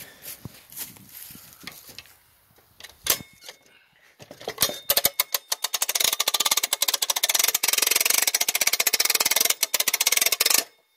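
Hand-crank gear winch ratcheting as it is cranked, hauling a big log on a go-devil skid by cable. A few scattered knocks come first, then from about four and a half seconds in a loud, rapid, even clicking of the ratchet pawl, which cuts off suddenly near the end.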